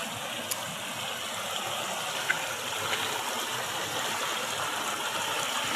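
River in flood flowing steadily, a constant rush of water.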